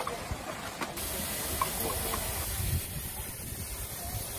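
Steam hissing from a small steam locomotive. The hiss starts abruptly about a second in and holds steady, with a low rumble beneath it.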